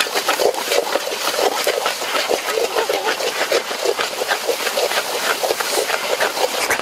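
Chicken wings frying in a wok, the fat and juices crackling and bubbling in quick, irregular pops.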